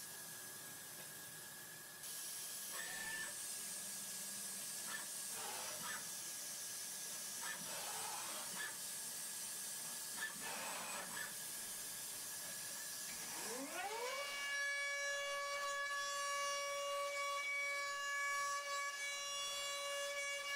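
Datron M8Cube CNC milling machine: a steady hiss, with short whirs rising and falling in pitch as the axes traverse. About thirteen seconds in, its high-speed spindle spins up, a whine rising in pitch and then holding steady.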